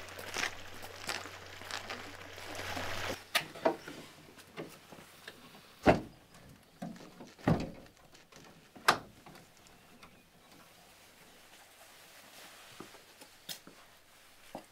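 A rustling background with a low hum that cuts off suddenly about three seconds in. After it, a handful of separate dull knocks or thuds come over quiet room tone, the loudest three about six, seven and a half and nine seconds in.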